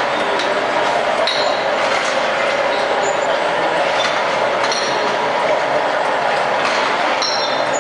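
Bottle-filling line running: a steady mechanical din from the slat-chain conveyor and filling machine, with small glass bottles clinking against each other a few times.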